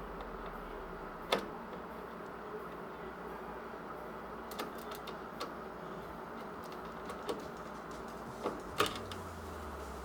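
Scattered small clicks and taps of screws and a screwdriver against a PC case and motherboard during mounting, over a steady hum. The two loudest clicks come about a second in and near the end.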